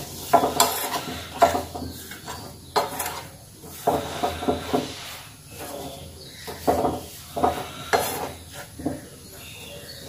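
Spoon scraping and knocking against a frying pan in irregular strokes while stirring dry flour as it roasts on the stove.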